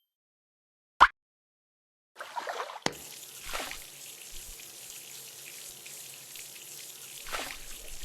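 A single sharp click about a second in, then water trickling steadily from about two seconds in, with a few brief swells.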